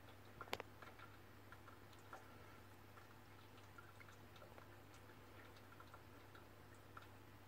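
Near silence: a reef aquarium's low, steady equipment hum, with faint scattered ticks and a sharper double click about half a second in.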